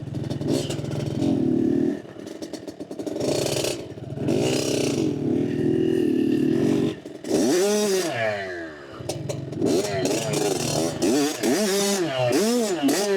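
Dirt bike engine running, then revving up and down over and over through the second half.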